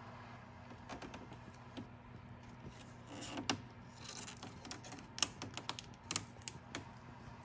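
Scattered small clicks, taps and scrapes of fingernails and a pen-style craft knife working black vinyl wrap film onto a car's grille trim bar, with a short rustle of the film about three seconds in and a few sharper clicks near the end.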